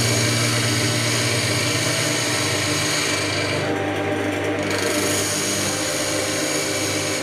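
Woodturning tool cutting spalted beech on a spinning lathe, a steady hissing scrape of the cut over the low hum of the lathe's motor. The cutting noise breaks off briefly about four seconds in as the tool eases off, then resumes.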